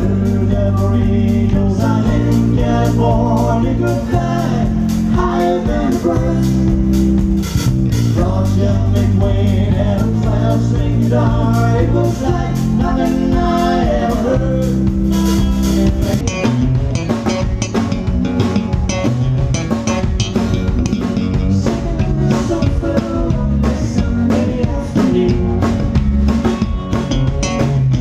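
Live country band playing with guitars, bass guitar and a drum kit, with a sung lead vocal through about the first half. Heard from on the stage.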